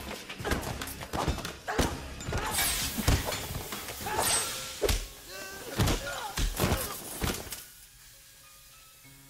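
Film fight-scene soundtrack: a rapid, irregular run of punch, kick and blunt-impact thuds with grunts and shouts over background music. The fighting dies away about three-quarters of the way through, leaving only a faint low bed.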